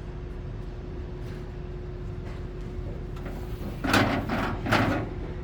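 Two brief scraping, rustling handling noises about four seconds in, over a steady background hum with a faint constant tone.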